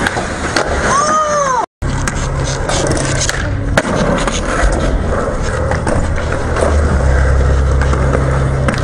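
Skateboard wheels rolling over the concrete of a skatepark: a steady low rumble with scattered small clacks. There is a sharp knock about four seconds in, and a brief squeak about a second in. The sound cuts out for a moment just before two seconds.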